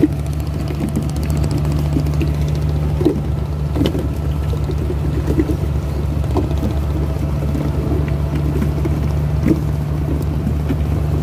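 A fishing boat's engine running steadily with an unchanging low hum, with water rushing along the hull as the boat moves through the sea.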